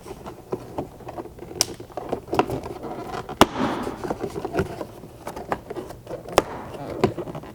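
Plastic door-panel retaining clips popping out one after another as a Jeep Wrangler JL rear door trim panel is pulled away by hand. Several sharp snaps, the loudest about three and a half seconds in, with the panel rustling and creaking between them.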